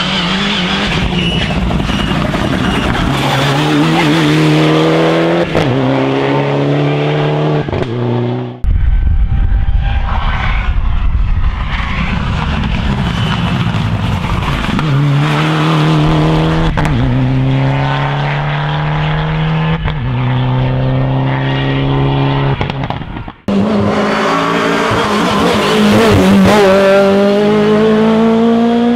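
Rally car engines at full throttle on a stage, each pulling hard through the gears: the engine note climbs, drops back at each gear change and climbs again. The sound cuts abruptly twice to a different car.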